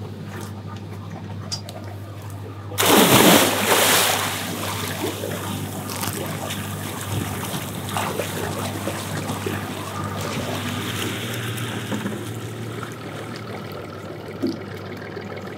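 A man jumping off a boat into the sea, a loud splash about three seconds in, followed by the lighter, irregular splashing of his swimming strokes over a steady low hum.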